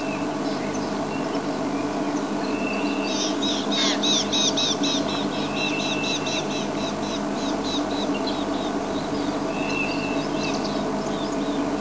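Wild birds calling: a run of quick, evenly repeated high chirping notes for several seconds, with short whistled notes before and after it. Under them runs a steady low hum.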